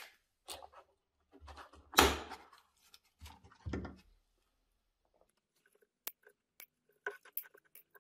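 A plastic parts organizer box being handled and its latched lid clacked open, the loudest clack about two seconds in. From about six seconds on, a run of light, sharp clicks as small metal springs and valve parts from a fuel distributor are dropped into the plastic compartments.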